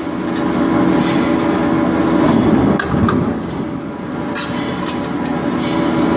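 Industrial press machinery running, with a steady hum and a couple of sharp metallic clanks partway through.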